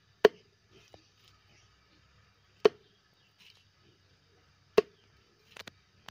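A large knife chopping through an eel into a chopping board: three hard chops about two seconds apart, then a few lighter knocks near the end.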